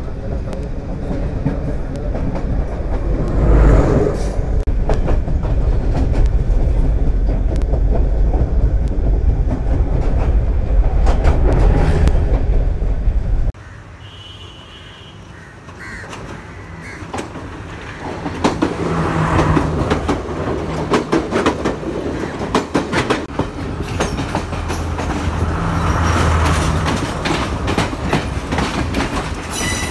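Passenger train coaches passing close by, their wheels clattering over the rail joints over a heavy rumble. About halfway through the sound cuts off abruptly to a much quieter rumble. The clatter of passing coaches then builds again for the last part.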